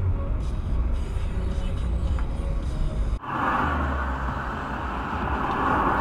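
Steady low rumble of a car driving, heard from inside the car. About three seconds in it cuts abruptly to louder, steady hissing traffic noise as cars pass close by.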